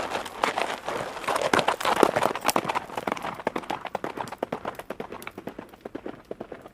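Galloping hoofbeats of a horse: a rapid, uneven run of thuds on the ground that grows fainter in the second half.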